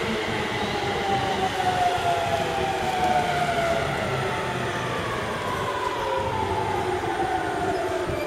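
JR East E231-500 series Yamanote Line electric train's traction motors and inverter whining, several tones gliding steadily down in pitch together over the rumble of the wheels as the train slows.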